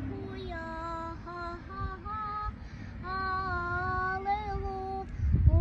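A single child's voice singing a slow melody of held notes. A short burst of low rumble comes near the end.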